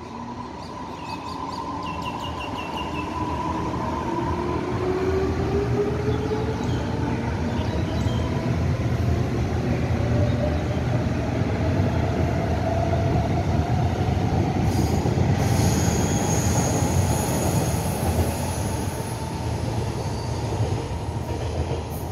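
Taiwan Railway EMU515/507 electric multiple unit pulling away, its IGBT-VVVF inverter and traction motors whining in several tones that rise steadily in pitch as it gathers speed. The whine sits over a growing rumble of wheels on rail, and a high squeal joins about fifteen seconds in.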